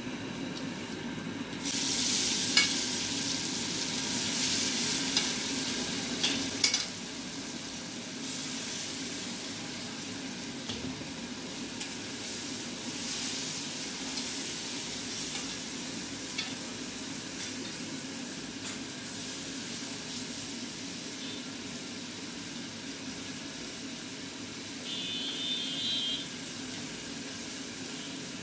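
Spice-coated fish pieces frying in hot oil in a kadai. The sizzle grows loud about two seconds in, with a few sharp knocks of a metal spatula against the pan as the pieces are stirred.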